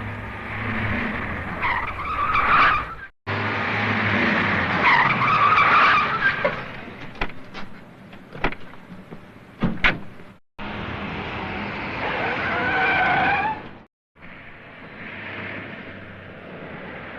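A string of short car-chase sound effects: a car engine running as tyres squeal in skids, cut abruptly into the next effect three times. A run of sharp bangs comes in the middle.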